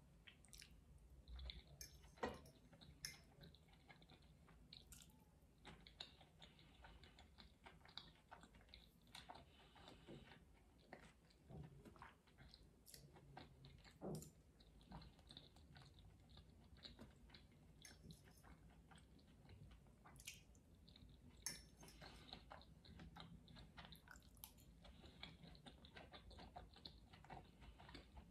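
Faint chewing of fried potatoes and mushrooms, with scattered sharp clicks of a metal fork.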